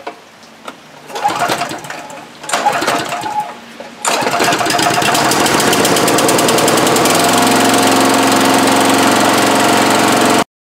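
Briggs & Stratton lawn mower engine pull-started after a couple of short recoil-starter pulls, catching about four seconds in and running steadily. It now runs on a replacement ignition coil, so the no-spark fault is cured.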